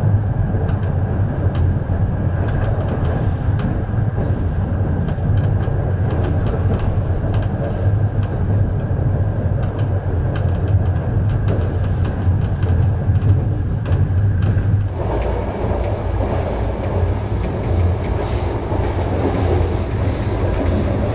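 Passenger train running on the rails, heard from aboard: a steady low rumble from the wheels and track, with frequent light clicks and rattles. The running noise changes about fifteen seconds in, becoming fuller.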